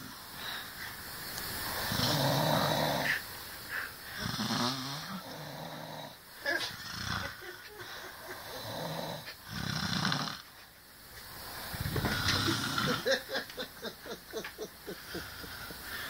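People asleep snoring loudly, a rasping snore every two to three seconds, with a quick fluttering rattle to the later snores.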